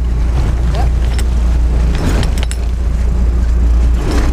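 Boat engine running with a steady low rumble, with a few short knocks on top of it.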